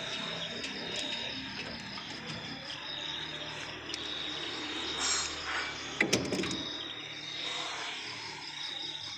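Crickets chirping steadily in the background, with a couple of sharp knocks about six seconds in from a hand tool working at the engine's fuel injection pump.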